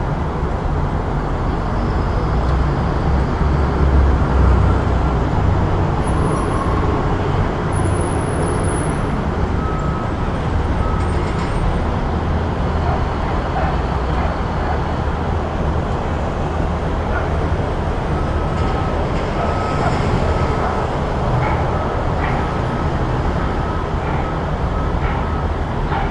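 City street traffic: a steady wash of passing vehicles, with a heavier low rumble swelling about four seconds in.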